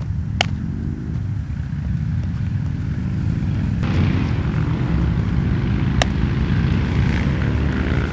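Wind rumbling and buffeting on the microphone, with a broader rush from about four seconds in. A sharp click comes near the start and another about six seconds in.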